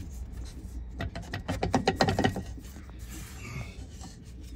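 Quick run of rattling clicks from an EZGO RXV golf cart's e-brake as it is worked by hand on the end of the motor shaft, starting about a second in and lasting about a second and a half, over a low steady hum.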